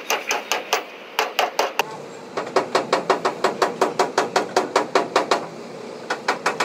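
Rapid metallic hammering in short runs, about six blows a second. A few blows come at the start, a short run about a second in, a long steady run from about two and a half to five and a half seconds in, and a few more near the end.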